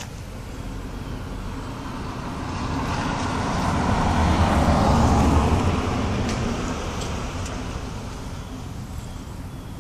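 A road vehicle passing by: its engine and tyre noise swells to a peak about five seconds in and then fades away.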